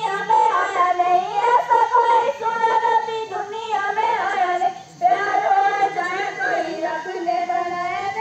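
A child singing a naat in Gojri, a melodic line of held and bending notes, with a brief pause about five seconds in.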